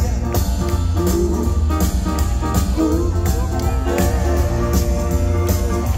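A live retro swing and rock 'n' roll band playing an instrumental passage: a bending lead line over heavy bass and a steady drum beat.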